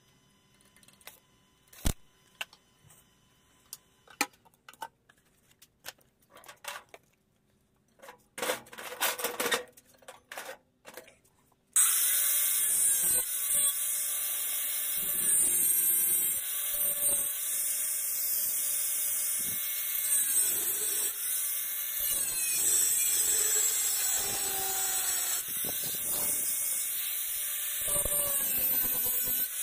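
Electric angle grinder starting suddenly about twelve seconds in and grinding steel, its whine dipping again and again as the disc is pressed into the work. Before it, scattered light clicks and taps of metal pieces being handled.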